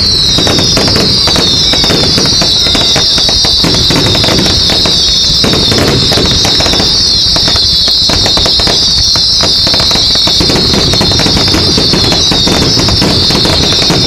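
Fireworks going off: many overlapping shrill whistles, each falling in pitch, over continuous crackling and bangs.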